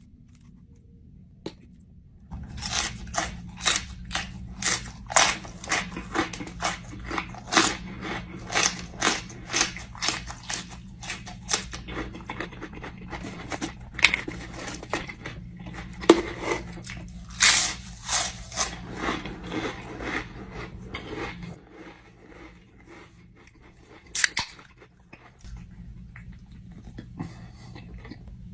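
A person chewing a crunchy spicy snack, loud crisp crunches at about two a second that stop about 21 seconds in, followed by a single sharp click a few seconds later.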